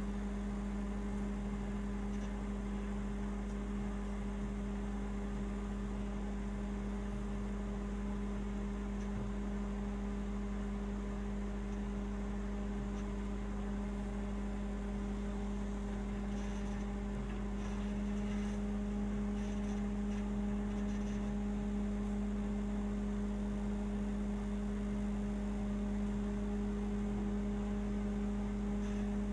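Microwave oven running: a steady hum that gets slightly louder about 18 seconds in.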